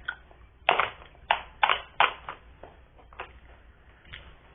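Small plastic slime containers being handled, giving a quick irregular run of sharp clicks and knocks, thickest in the first two seconds and thinning out toward the end.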